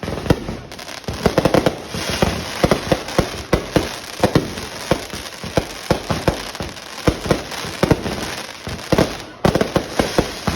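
Fireworks going off in quick succession: many loud, irregular bangs and crackles, several to the second.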